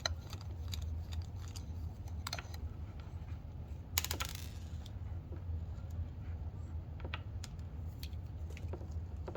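Small metal clicks and taps of tools and parts being handled while a pair of Oakley Juliet metal sunglasses is taken apart, with one louder click and scrape about four seconds in. A steady low hum underneath.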